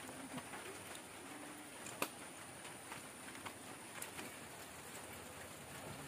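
Light rain falling on foliage: a steady patter with scattered small drop taps, one louder tap about two seconds in.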